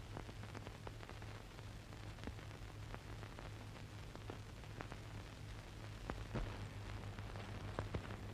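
Old film soundtrack noise with no dialogue: a steady low hum under even hiss, peppered with faint scattered clicks and crackles.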